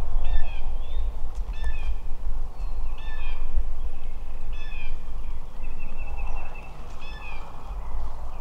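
Bird calls in the woods: short, high, bent call notes repeated roughly once a second, with a thin held tone near the end, over a steady low rumble.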